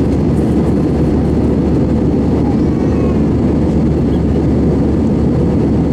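Airbus A321 passenger cabin in flight: a steady, low-pitched noise of the jet engines and the air rushing past the fuselage.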